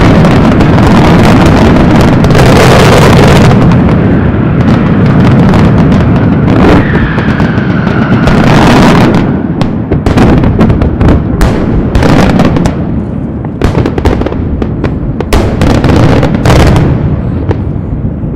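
A fireworks display: a dense, continuous rumble of shell bursts, with a whistle falling in pitch about seven seconds in. In the second half it turns into a rapid run of sharp bangs and crackles.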